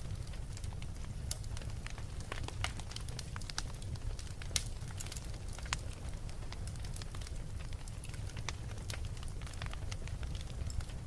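Wood fire crackling: frequent sharp pops and snaps of varying strength over a steady low rumble, with one louder pop about four and a half seconds in.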